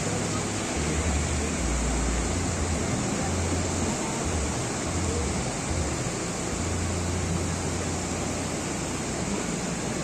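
Small waves breaking and washing up the shore in a steady rush of surf, with an uneven low rumble underneath.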